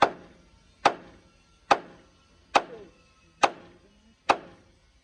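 Hammer blows on metal at a steady, even pace: six strikes a little under a second apart, each with a short ring.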